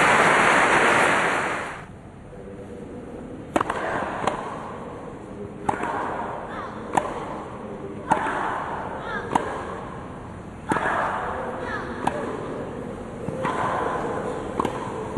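Crowd applause for about the first two seconds, fading out. Then a tennis point on a grass court: sharp racket strikes on the ball, a serve about three and a half seconds in and a rally of roughly eight more strokes about one every second and a half, most followed by a player's grunt.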